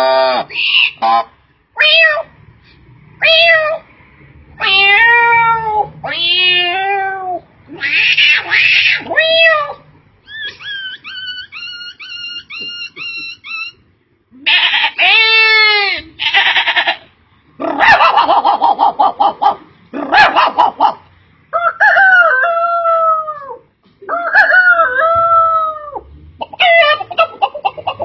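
A person imitating animal calls: a string of separate calls that bend in pitch, with a quick run of short repeated notes near the middle.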